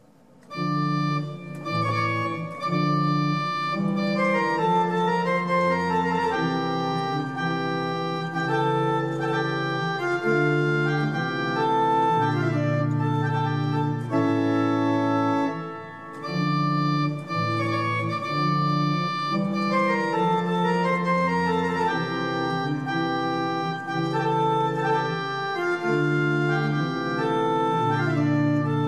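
Tubular-pneumatic action pipe organ playing a Baroque aria: sustained chords over a moving bass line with a melody above. It starts about a second in and has a brief dip between phrases about halfway through.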